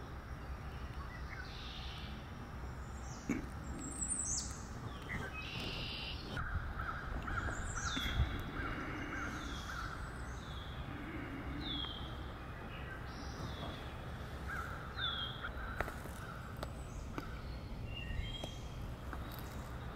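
Birds calling: through the middle a run of about six short downward-slurred calls, a little under a second apart, with other scattered calls around them, over a steady low rumble.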